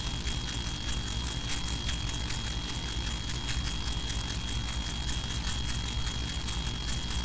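Steady low hum and hiss of a large hall's room tone, with a thin steady high whine and scattered light clicks and rustles from people moving about.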